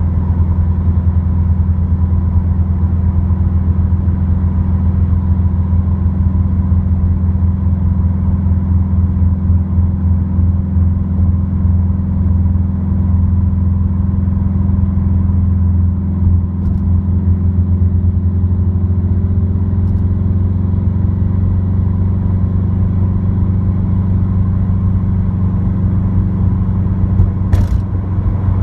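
Subaru WRX's turbocharged flat-four, through an Invidia N1 dual cat-back exhaust, drones steadily inside the cabin at cruise. Partway through, some of the tones rise slightly, and near the end there is one sharp click.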